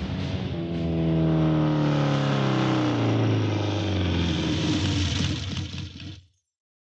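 Motorcycle engine slowing down, its note falling steadily as the bike comes to a stop, then cut off suddenly about six seconds in.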